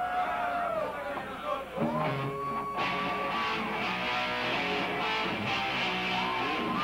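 Rock band playing live: electric guitar holding long notes that slide up and down, with drums and cymbals coming in about three seconds in.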